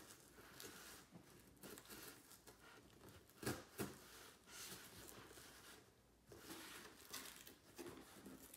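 Faint scratching and tearing as the packing tape on a cardboard box is slit open, with two sharp clicks about three and a half seconds in.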